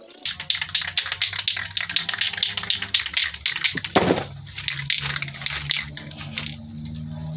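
Paintbrush scratching and ticking across rough crate wood as a coat of water sealer is brushed on, a quick irregular run of scratchy clicks, with a louder knock about four seconds in. A low steady hum sits underneath.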